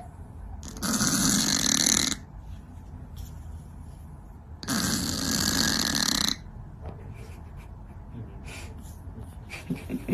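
A sleeping cat snoring: two long, loud snores about four seconds apart.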